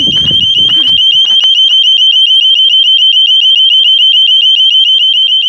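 KF7 standalone burglar alarm's built-in siren sounding: a loud, high-pitched tone warbling rapidly and evenly without a break.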